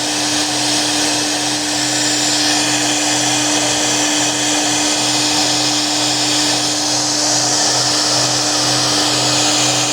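CNC router spindle running at a steady high speed as it cuts, with one constant whine under a loud, even hiss.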